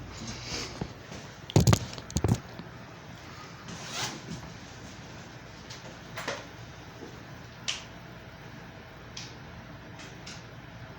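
Handling noises: two loud knocks about one and a half to two and a half seconds in, then a scatter of short clicks and scrapes.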